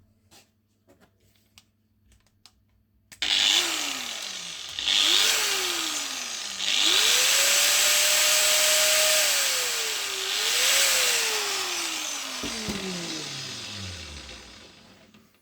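Metabo angle grinder started after a few faint clicks: its motor spins up and winds down twice in short bursts, then runs for a few seconds at full speed and is left to coast down to a stop, its pitch falling. It runs again now that its faulty power cord has been replaced.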